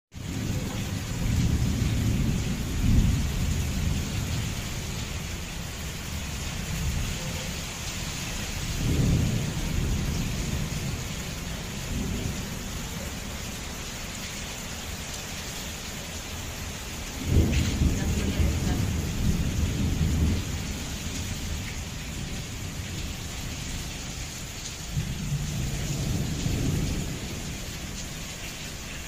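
Heavy autumn downpour hissing steadily, with thunder rolling several times over it. One peal breaks in suddenly a little past the middle.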